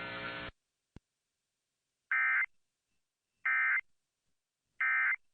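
Emergency Alert System end-of-message signal: three identical short bursts of warbling digital data tones (the AFSK "NNNN" code), each about a third of a second, evenly spaced about a second and a half apart. It comes after a steady hum that cuts off about half a second in and a single click, and it marks the end of the alert.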